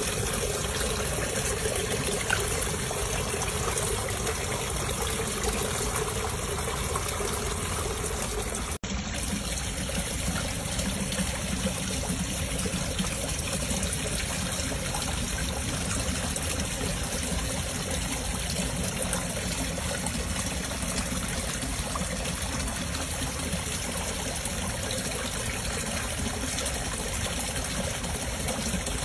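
Steady trickling, running water, broken by an instant's dropout about nine seconds in.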